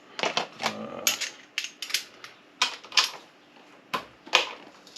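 Sharp metallic taps and clinks, unevenly spaced at about two or three a second, as a Kawasaki GPZ550 engine mounting bolt is worked free. The bolt is moving and is not seized in the engine casing.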